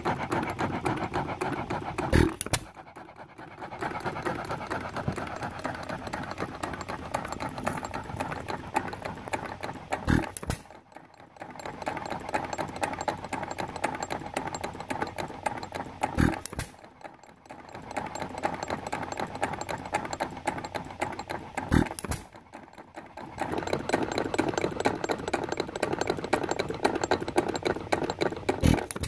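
Ingeco 1 1/2 hp hit-and-miss stationary gas engine running unloaded: it fires with a sharp bang five times, every six seconds or so, and coasts on its flywheels between firings with a steady mechanical clatter.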